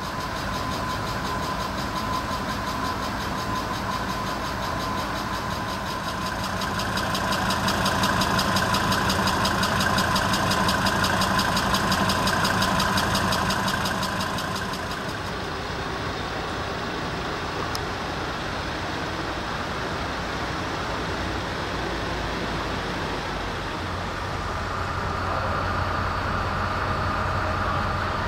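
Heavy vehicle engine running steadily, with a fast, even pulse and a steady whine. It gets louder for a few seconds in the middle and changes character about halfway through.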